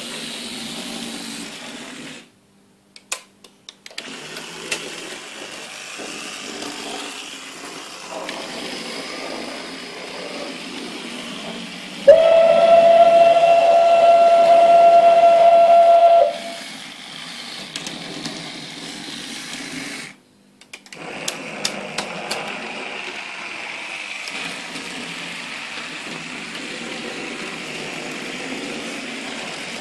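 Computer-generated model-railway sound effects played through a small speaker: a steady running-train hiss. About twelve seconds in, a loud steady train whistle sounds for about four seconds. The sound cuts out twice briefly, with a few sharp clicks around the gaps.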